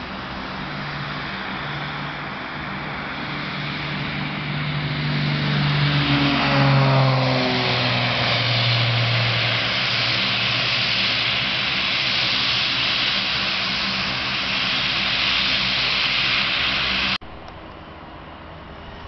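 Cessna 402B twin piston-engine plane flying past at low level. Its engine drone grows louder and drops in pitch as it passes, then turns into a loud rushing noise as it moves away. The sound cuts off suddenly about 17 seconds in, leaving a quieter steady background.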